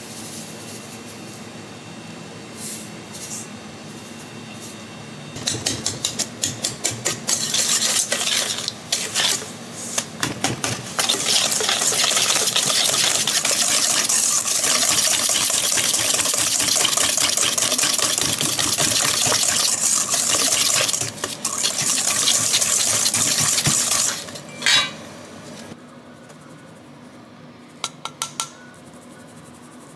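Metal kitchenware being worked hard by hand: a run of quick clattering strokes, then about ten seconds of dense continuous scraping and clatter, a few more strokes, and a single sharp knock near the end.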